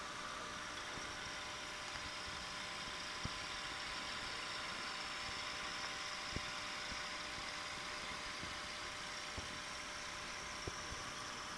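BiOrb aquarium's air-driven bubble column running: a steady bubbling hiss at the surface over a faint hum, with a few soft pops.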